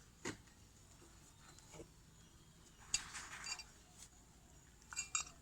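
Faint scattered metallic clicks and clinks as brake caliper parts are handled by hand. There is a small cluster about three seconds in and another near the end.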